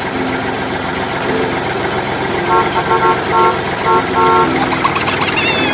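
Vehicle horn honking in a quick series of about five short toots over steady engine-like noise, then a brief falling squeak near the end.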